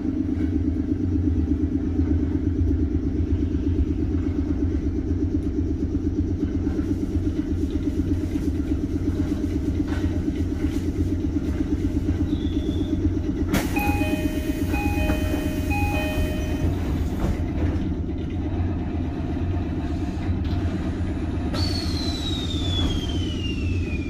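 Steady low hum of a stopped 719 series electric train's onboard equipment. About halfway through, a door chime plays a short repeated tone pattern over the hiss of the sliding doors working, and the door is shut by the end. Near the end a hiss starts again with a whistle falling steadily in pitch.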